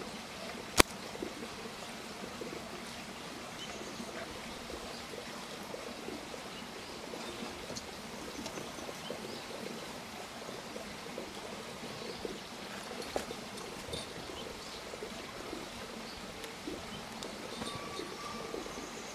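Steady outdoor background hiss with faint scattered chirps and ticks, and one sharp click a little under a second in.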